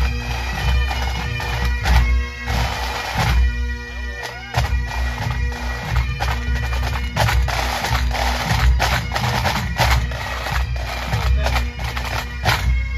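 Massed pipe band playing: Highland bagpipes sounding a tune over a steady drone, with snare drums rattling and bass drums beating underneath.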